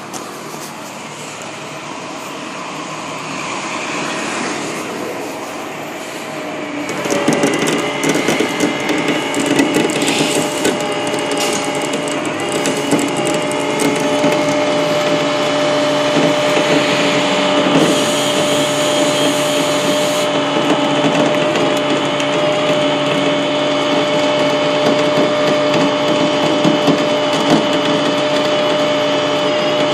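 Flatbed tow truck's machinery running at a steady pitch, a droning whine that grows louder about seven seconds in and then holds level.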